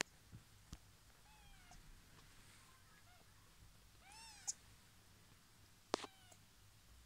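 Very young kittens, eyes just opening, mewing faintly: thin, high-pitched mews, a weak one early, a clearer arched mew about four seconds in and another near six seconds, with a few soft clicks in between.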